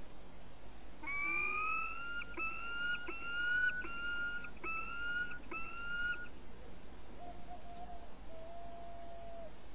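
Peregrine falcon calling: a series of six drawn-out, whining notes, each rising slightly in pitch. Two fainter, lower steady tones follow.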